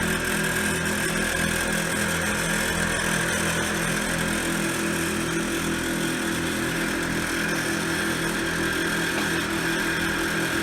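Air-ride compressors running steadily, filling the air tank with a fast, even pulsing hum. The pressure switch has switched them on.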